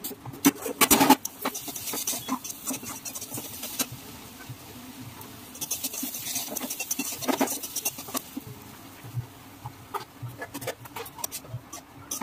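Metal spatula scraping and clinking against a steel wok as food is stirred, in spells of quick strokes, loudest about a second in and again around six to seven seconds in.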